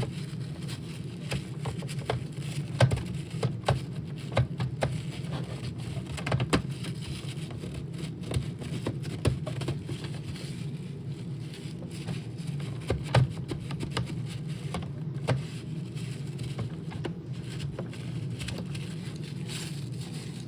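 Light irregular clicks and taps of small plastic parts being handled and cleaned, over a steady low hum.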